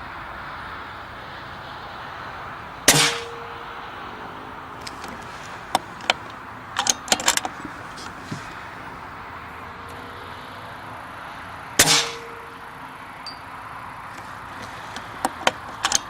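Two shots from an Air Arms S410 pre-charged pneumatic air rifle, about nine seconds apart, each a sharp crack with a brief metallic ring. Each shot is followed a few seconds later by a run of small mechanical clicks.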